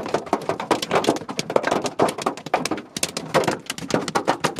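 Hailstones pelting the car's roof and body, heard from inside the cabin as a dense, irregular clatter of taps and thunks.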